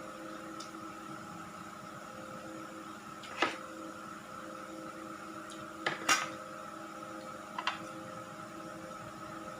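Steady machine hum made of several tones, like a small motor or fan. A handful of short sharp clicks sound over it, one about three seconds in and two quick pairs around six and seven and a half seconds; the pair near six seconds is the loudest.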